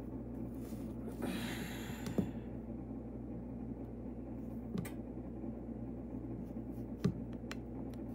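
Table knife scraping firm butter in a plastic tub: one scrape about a second in, then three short clicks of the blade against the tub, over a steady low hum. The butter is still too hard to scoop easily.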